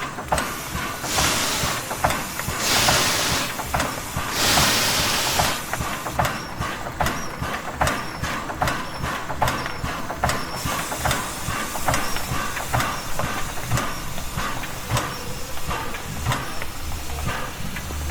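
Soviet class L steam locomotive standing at idle: three bursts of steam hiss within the first six seconds, over a continual run of sharp metallic clicks and knocks.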